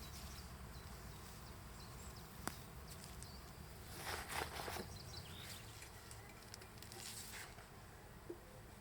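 Quiet outdoor ambience: a low steady wind rumble with faint high chirps. A sharp click comes about two and a half seconds in, and two brief rustles come around four and seven seconds in.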